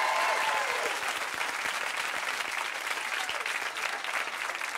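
Studio audience applauding, with a few cheers and whoops that die away in the first second while the clapping goes on.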